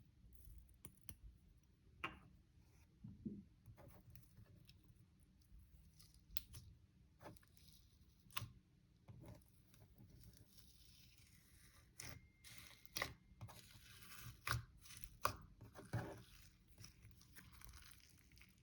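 Purple slime with foam balls mixed in, being squished and kneaded by hand: soft irregular crackles and pops, with a few louder snaps.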